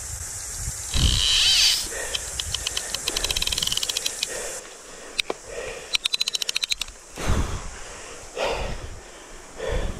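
Okuma Solterra SLX 50W lever-drag overhead fishing reel ratcheting in two quick runs of clicks, about eight to ten a second, while a hooked fish is being fought. The clicks are mixed with short, loud rumbling bursts on the microphone.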